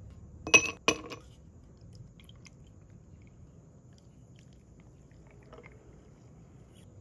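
Ice cubes clinking into a cut-glass tumbler, two sharp strikes with a short ring about half a second and a second in, followed by a faint pour of matcha over the ice and milk.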